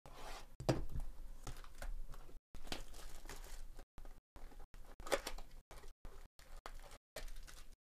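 Plastic wrapper being torn off a 2023 Bowman Chrome baseball card box and crinkled in the hand as the cardboard box is opened: irregular crackles and rustles.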